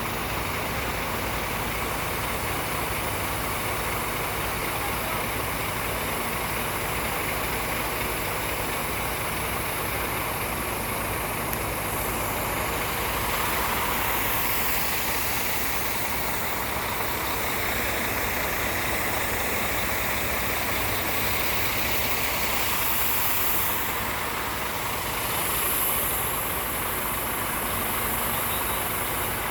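A heavy engine running steadily at a constant speed, with a hiss that swells a couple of times in the middle.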